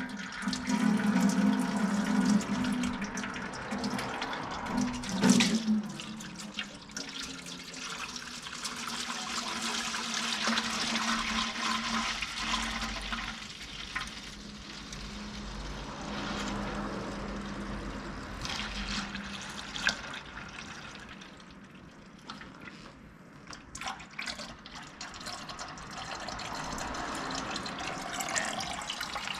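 Used engine oil pouring out of a Subaru Legacy BL5's sump drain into a drain pan: a steady, uneven splashing of liquid.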